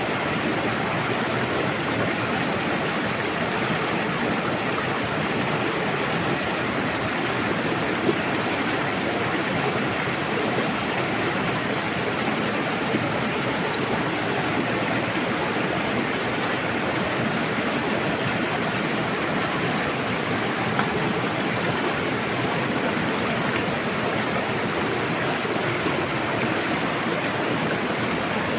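Steady rush of a fast-flowing river, water running and splashing over rocks.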